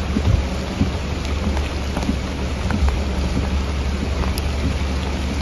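Heavy rain falling steadily, with scattered drop ticks and a constant low rumble of wind buffeting the microphone.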